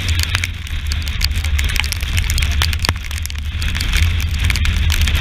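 Strong wind buffeting the deck-mounted camera's microphone with a constant low rumble, while water droplets patter and crackle on the camera housing, on a yacht driving hard through rough seas.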